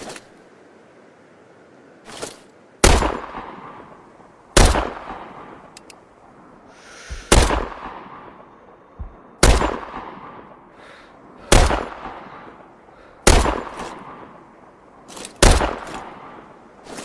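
SVD Dragunov semi-automatic sniper rifle firing single shots, about seven in all, spaced roughly two seconds apart. Each shot is sharp and trails off in a long echo.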